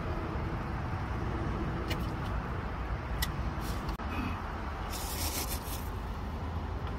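Someone eating cold noodles with metal chopsticks: a couple of light clicks, and a short hissing slurp about five seconds in. A steady low background rumble runs underneath.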